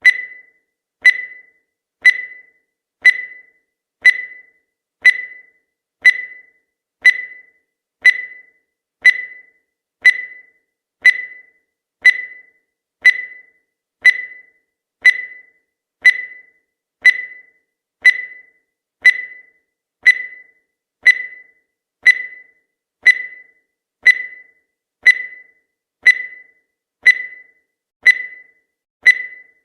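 Countdown timer sound effect: a short, high-pitched electronic beep once every second, each dying away quickly, marking off the seconds of the countdown.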